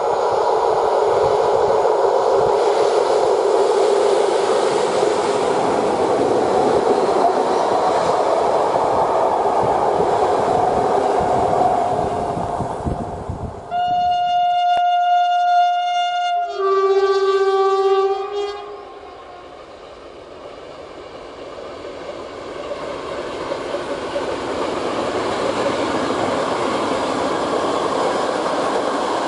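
An SM42 diesel-electric locomotive hauling passenger coaches runs past with a steady rumble. About halfway through a locomotive horn sounds two blasts: first one long steady note, then a shorter, lower one. The sound then falls away and slowly swells again as the train approaches with its engine and wheels running on the rails.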